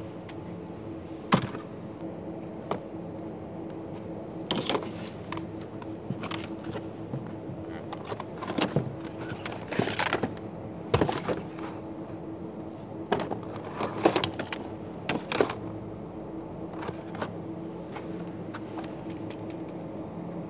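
Supermarket background: a steady low hum with scattered clicks, knocks and light clatter, the sharpest about a second in and a cluster of them from about nine to fifteen seconds in.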